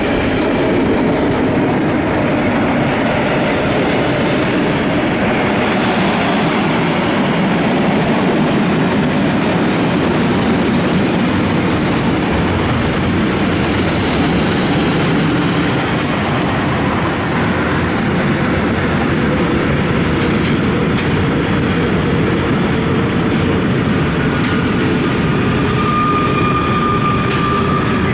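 Freight train of tank wagons rolling past at close range: a loud, steady rumble and clatter of wheels on rails. Twice, about halfway through and again near the end, a brief high-pitched wheel squeal rises above it.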